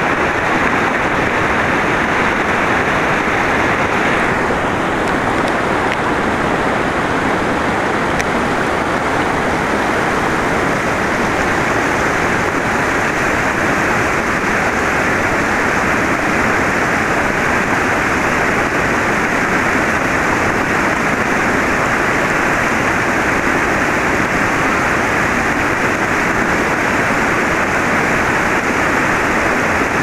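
Whitewater river rapids rushing steadily over rock ledges.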